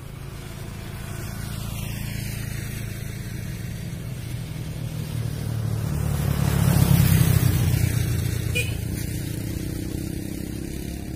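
A motor vehicle passing by, its engine and road noise swelling to a peak about seven seconds in and then fading away.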